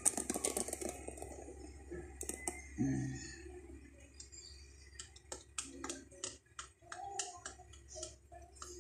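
Quiet, irregular clicks and taps from a wooden spatula prodding dry instant-noodle blocks against a pan of heating water, coming more often in the second half.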